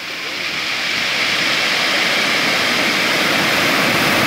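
Surf: a wave building and breaking on a gravel shore. The rush of water swells over the first second and stays loud.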